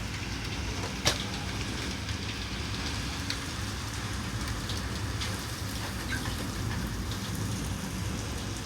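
Hail and rain falling hard, a steady hiss dotted with sharp clicks of single hailstones striking, one louder crack about a second in.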